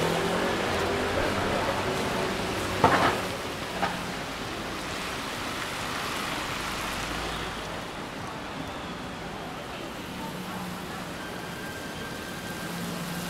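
Rainy city street ambience: a steady hiss of rain with faint traffic. Two sharp knocks come about three seconds in, a second apart, and the first is the louder.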